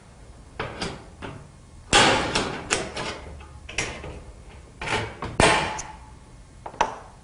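Sheet-metal cutting on a steel standing-seam roofing panel: about a dozen sharp, irregular metal snips and clicks, the loudest about two and five and a half seconds in.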